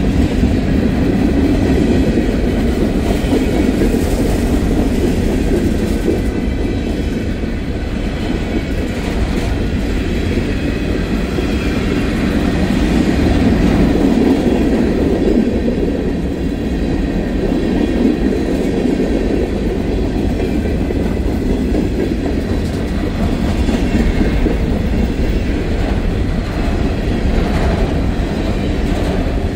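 Freight train passing close by: its cars' steel wheels run steadily over the rails in a continuous loud rumble.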